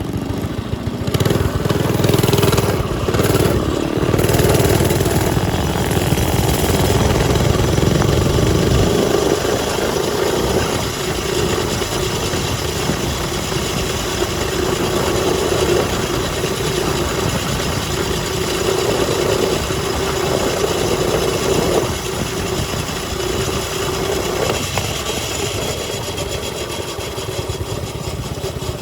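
Mini bike's small engine running, louder for the first several seconds, then settling into a steady run.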